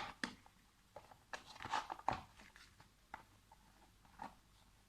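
Faint scattered clicks, knocks and brief scrapes of plastic parts being handled: a vacuum cleaner's cord reel being fitted into a plastic box.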